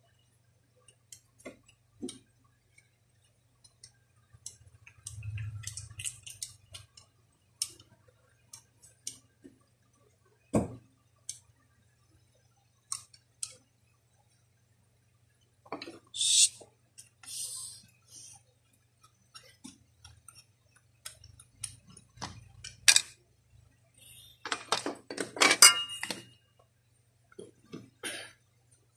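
Small metal and plastic parts of a Daisy Powerline 1200 air pistol clicking, clinking and knocking as it is taken apart by hand, in scattered irregular clicks with a few louder knocks and a longer stretch of rattling a little before the end.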